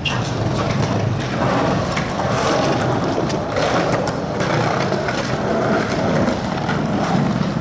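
Skateboard wheels rolling over rough pavement, a steady grinding rumble with a few faint clacks.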